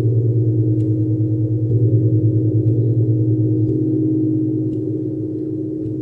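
Large metal gong played with a felt mallet, giving a deep, sustained, wavering hum that swells and then slowly eases off in the second half.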